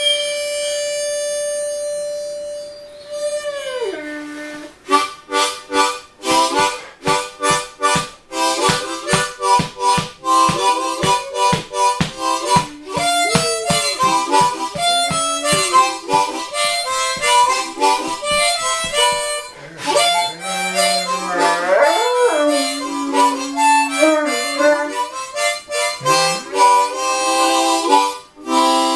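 Harmonica playing a blues riff, a long held note and then a fast run of rhythmic chord pulses, with a Great Dane puppy howling along.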